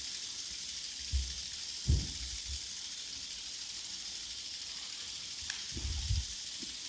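A soft, steady high hiss of fine crackling from the performers, broken by a few dull low thumps about one and two seconds in and again near the end.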